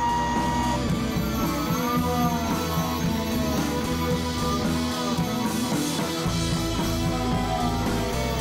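Background rock music with a wavering guitar melody over a steady bass.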